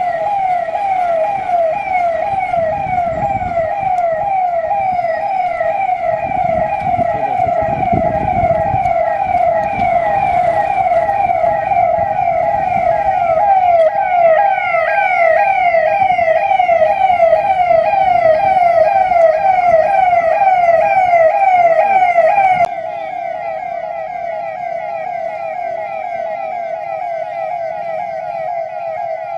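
Police vehicle siren sounding a fast, repeating yelp, each cycle a quick sweep down in pitch, with low vehicle rumble underneath. Near the end it drops abruptly to a lower level.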